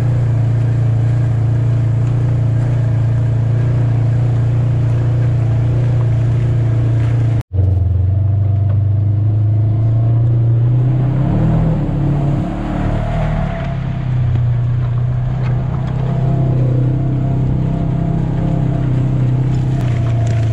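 Polaris RZR 900 side-by-side's engine running steadily under way, with a short stretch near the middle where its pitch rises and falls as the throttle is worked. The sound cuts out for an instant about seven seconds in.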